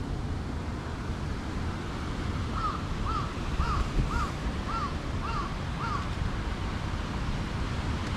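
A bird calling seven times in an even series, about two short rise-and-fall calls a second, over a steady low wind rumble on the microphone.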